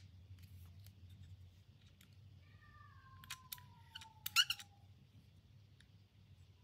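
Faint clicks and rattles of a stainless digital caliper being handled as its sliding jaw is run open, with a short cluster of sharper clicks about four seconds in.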